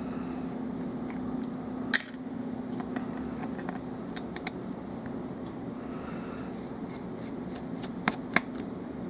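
Small metal lock parts and a screwdriver being handled while a lock cylinder is taken apart: quiet scraping with a few sharp clicks, one about two seconds in and two close together near the end. A low steady hum stops about four seconds in.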